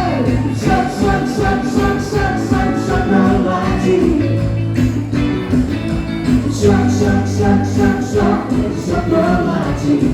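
Live band music with a steady drum beat under sustained pitched instrument lines.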